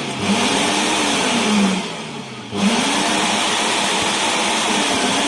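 National vacuum cleaner motor running on a test after its switch was cleaned and oiled. Its pitch swings up and down, and it winds down about two seconds in before coming back up to full speed.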